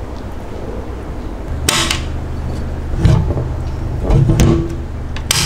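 Hands handling a glass terrarium and its black frame: a few dull knocks, and two sharp clicks about a second and a half in and near the end, over a steady low hum.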